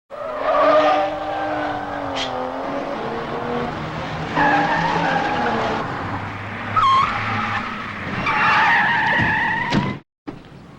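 Car tyres squealing in several long skids over a running engine, typical of a car-chase sound effect; the sound cuts off abruptly near the end.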